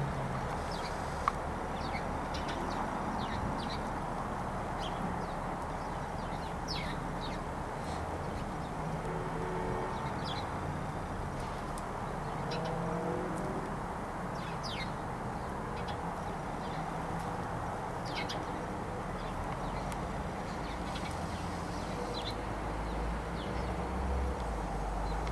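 Outdoor ambience: a steady hum of distant traffic with scattered short, high bird chirps throughout. A low rumble of passing traffic swells near the end.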